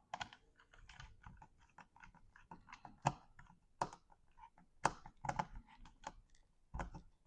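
Irregular light clicks and taps, a few sharper than the rest, of a screwdriver and a long screw being worked into the Beeman BP.50 launcher's frame during reassembly.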